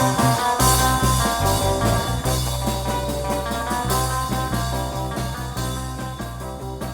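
Instrumental background music, gradually fading out.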